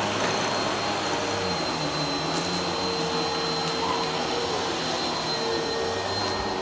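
Vacuum cleaner running steadily, its motor noise holding an even level with a constant whine.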